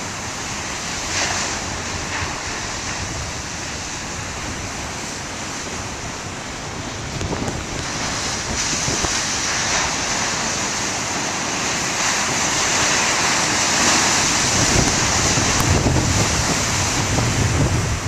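Heavy storm surf breaking and washing white over rocks, with wind buffeting the microphone. The surf grows louder through the second half.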